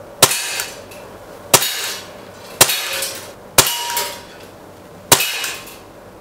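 ASG CZ 75 SP-01 Shadow CO2 blowback steel BB pistol fired slowly, five shots about a second apart. Each shot is a sharp crack with the slide cycling, followed by a short ringing tail.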